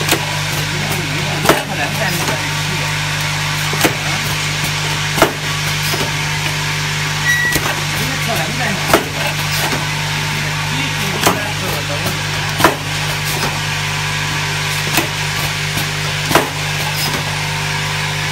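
Automatic cap inserting and capping machine running, with a steady low hum. Sharp knocks from its pressing mechanism come about every one to two and a half seconds.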